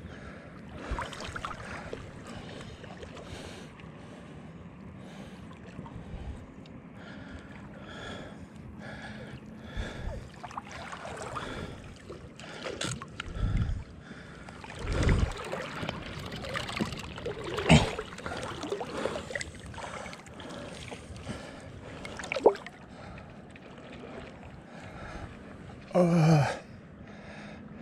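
River water lapping and splashing close to the microphone, with a few sharper splashes through the middle. Near the end comes a short, low, falling vocal grunt.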